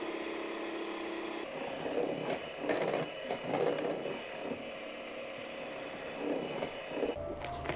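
Electric mixer whipping cream in a bowl: a steady motor whine with some scraping of the beaters, cutting off near the end.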